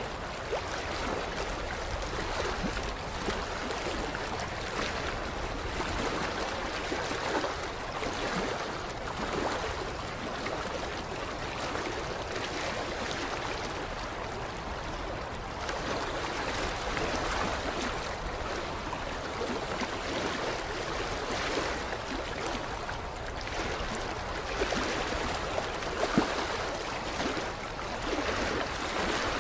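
Creek water lapping against a shoreline, a continuous gentle wash with small irregular splashes and swells every second or two.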